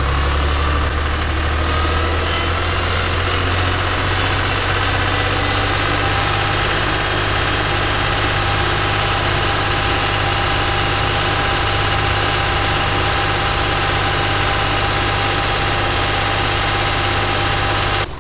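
Fendt 200-series tractor's diesel engine running steadily under way, heard from inside the cab, its note stepping up slightly about two seconds in.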